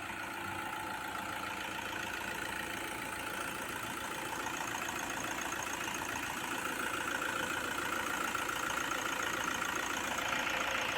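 Hyundai i20 engine idling steadily just after a full overhaul and refit into the car.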